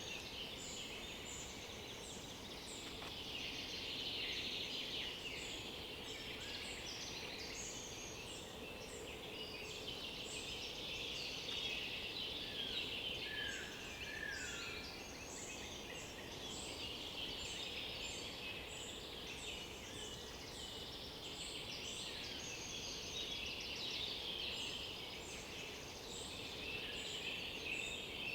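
Many songbirds singing at once in a dense, continuous forest chorus, with overlapping trills and chirps and short high notes repeating throughout. A couple of lower, downward-slurred whistles come about halfway through.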